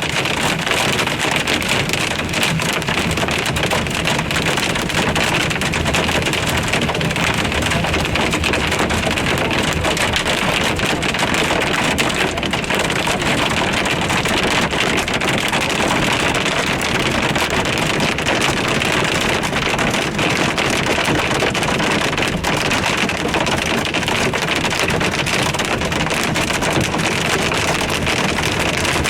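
Hail drumming on a car's roof and windscreen, heard from inside the car as a steady, dense clatter of many small hits.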